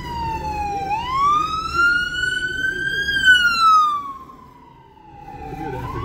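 Ambulance siren wailing: a slow rise and fall in pitch, dipping about a second in, climbing to a peak around three seconds in, then falling and fading briefly before rising again near the end.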